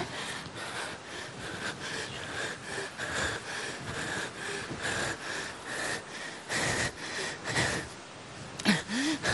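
A person breathing heavily, in loud, noisy breaths coming irregularly about every half second to second, with a short voiced gasp near the end.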